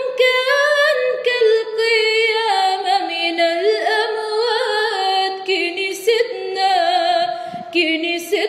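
A woman singing an Arabic hymn unaccompanied, drawing out long ornamented notes with vibrato and no pauses.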